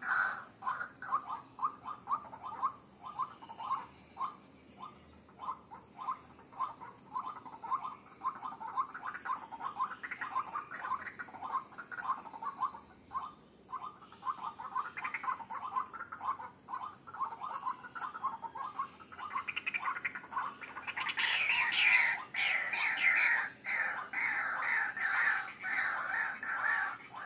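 White-breasted waterhen (ruak-ruak) calling: a long run of short repeated call notes, a few a second, growing louder and denser about three quarters of the way through. This is the call used to lure the species.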